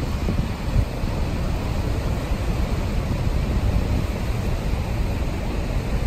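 Steady roar of rushing water from the Niagara River rapids and the Horseshoe Falls, with wind rumbling on the microphone.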